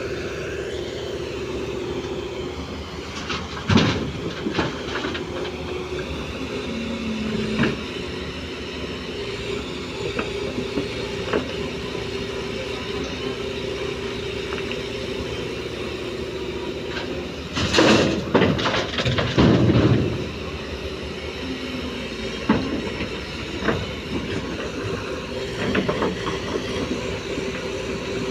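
Komatsu PC205 hydraulic excavator working: the engine and hydraulics run with a steady hum, broken by clanks and rattles of the bucket and arm. The loudest is a rattling burst of about two seconds, roughly two-thirds of the way through.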